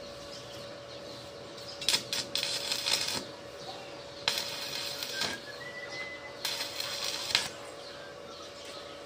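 Electric arc welding: the arc crackles and sputters in three bursts of about a second each, with a steady thin hum underneath.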